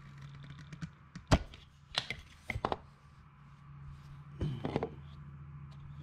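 Scattered clicks and knocks of metal parts and tools being handled against the aluminium housing of a Hitachi DH40FR jackhammer as it is taken apart. One sharp knock comes about a second in, and a quick cluster of clicks comes near the end, all over a steady low hum.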